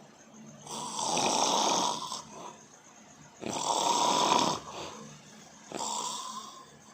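A person snoring loudly: three snores about two and a half seconds apart, each lasting a second or so with quieter breathing between; the third is shorter and softer.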